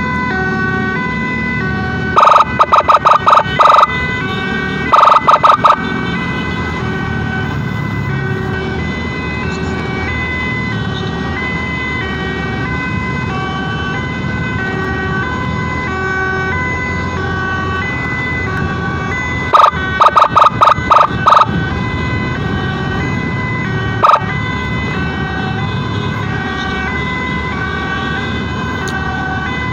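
Emergency siren sounding a continuous hi-lo pattern, alternating between a high and a low tone, over road and engine noise. Several times, a few seconds in, twice again around two thirds of the way through, and once more shortly after, it is broken by short strings of rapid, loud blasts.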